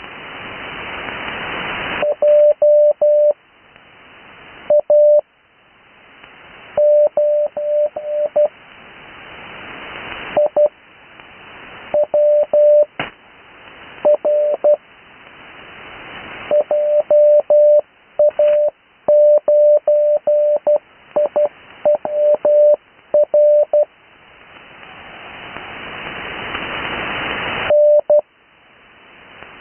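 Morse code (CW) on the 80-metre amateur band: a steady mid-pitched tone keyed into dots and dashes, sent as characters with long Farnsworth gaps between them. Radio static hiss swells up in each longer pause and drops away when the tone returns.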